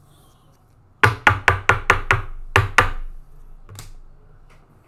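Quick sharp taps of something rapped on a hard tabletop: about nine in two seconds, then one more a moment later.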